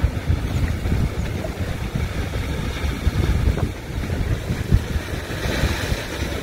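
Wind buffeting the microphone: an uneven, gusty low rumble that rises and falls.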